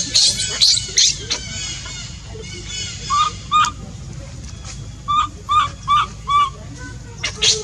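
Infant macaque crying: high-pitched squeals at first, then short repeated chirping calls, two about three seconds in and four in a row from about five seconds, and squeals again near the end.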